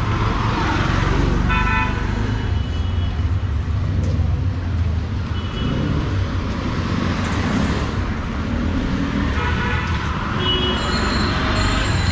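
Busy city street traffic with a steady engine rumble, and repeated short vehicle horn toots from passing traffic, several of them clustered near the end.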